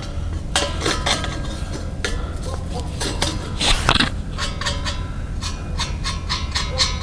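Irregular metal-on-metal clinks and scraping from a Farmall M's muffler being worked loose by hand on its exhaust stack, some clinks ringing briefly, over a steady low rumble.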